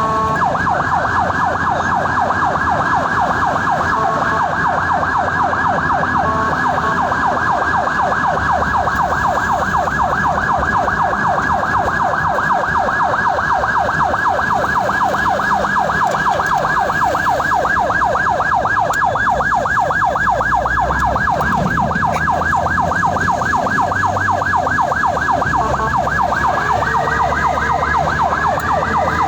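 Ambulance electronic siren in a fast, even yelp, changing to slower rising sweeps near the end, over the low rumble of the vehicle.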